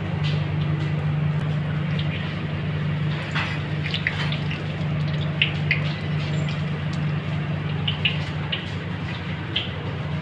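Hot oil sizzling as pakoras deep-fry in a steel kadai, with scattered short pops and light metal clinks from a spider strainer in the wok. A steady low machine hum runs underneath.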